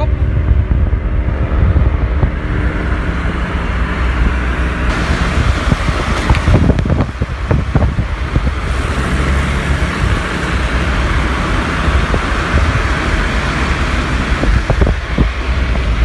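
Volkswagen Golf driving at speed close by: steady engine and road noise with wind buffeting the microphone.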